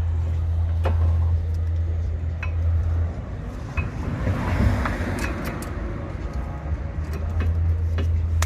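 Light metallic clicks and clinks of new brake pads and their steel clips being worked into a disc brake caliper bracket. Under them runs a steady low hum, with a brief rustling hiss near the middle.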